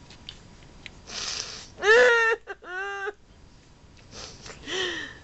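A woman laughing breathlessly: wheezing, gasping breaths broken by high squealing laughs, the loudest about two seconds in, another near the end.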